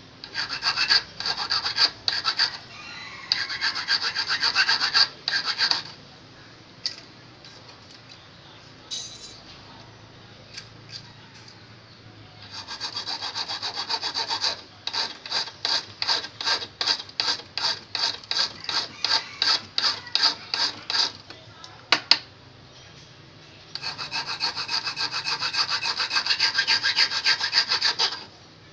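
Flat metal file rasping on the steel point and barb of a fishing hook held in locking pliers. It goes in three spells of quick back-and-forth strokes with pauses between them.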